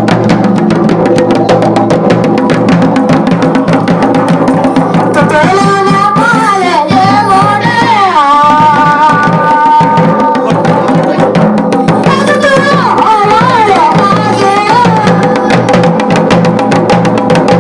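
Garhwali dhol beaten in a fast, dense, continuous rhythm. A wavering sung melody rises over the drumming for a few seconds in the middle and again about twelve seconds in.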